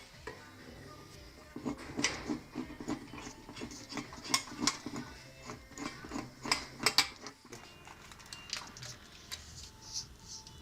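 A run of irregular sharp clicks and knocks lasting about six seconds, loudest in the middle, over a faint low background hum.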